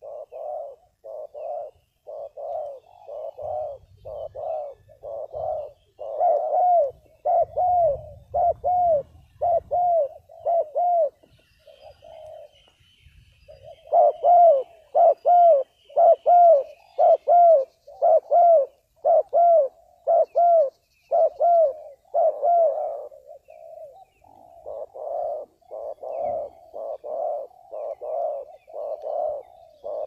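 Spotted dove cooing: a long run of short, arched coos, about two a second, with a brief break about twelve seconds in and the loudest coos soon after.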